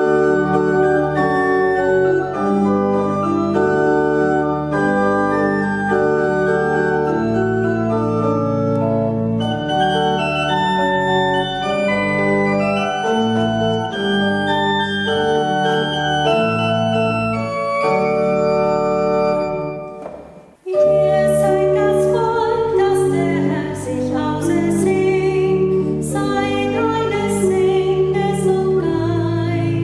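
Church pipe organ playing held chords as a hymn introduction. It breaks off briefly about two-thirds through, then goes on accompanying a woman's solo voice singing the German hymn.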